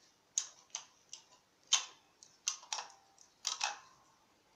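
Sharp, irregular clicks and taps from a small plastic item being handled and fiddled with in the hands, about nine in all, some in quick pairs.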